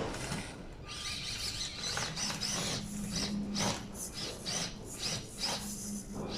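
Axial SCX24 Deadbolt 1/24-scale RC crawler driving over a difficult section of track: its small electric motor and gears hum steadily from about two seconds in, with repeated clicks and scrapes of the tyres and chassis on the obstacles.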